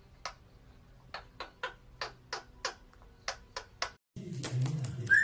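A series of about ten sharp taps, irregularly spaced, over a quiet background; about four seconds in, an abrupt cut to music.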